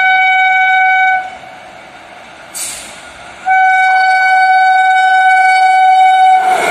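Electric locomotive's air horn: one long, steady blast ends about a second in, and after a pause of about two seconds a second long blast sounds. Near the end the rushing noise of the arriving train takes over.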